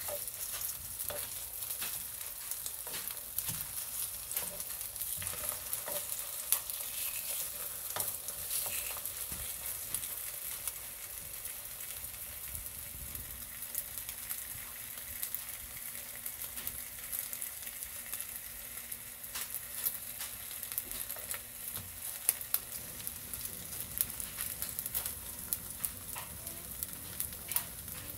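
Egg-coated Spam slices frying in oil in a nonstick pan: a steady sizzle with frequent small crackling pops.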